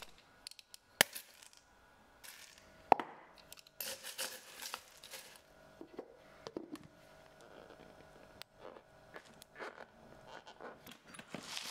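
Metal parts, aluminium brake levers and steel balls, being handled and dropped into a plastic sewer-pipe-fitting container: scattered light clicks and clinks, the sharpest about a second in and about three seconds in. Near the end the plastic lid is pressed onto the fitting.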